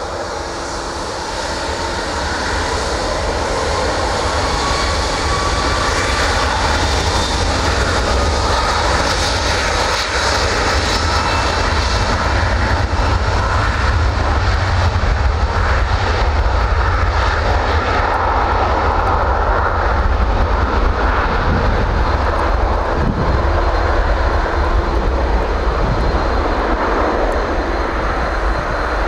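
Rolls-Royce Trent 700 turbofans of an Airbus A330-200 at takeoff thrust during the takeoff roll: a jet engine roar that grows louder over the first few seconds, then holds steady.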